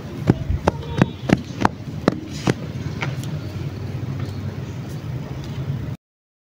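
Open palms patting a heap of dry, grainy sandy soil: about eight soft slaps, roughly three a second, over the first three seconds. A steady low rumble runs underneath, and all sound cuts off suddenly about six seconds in.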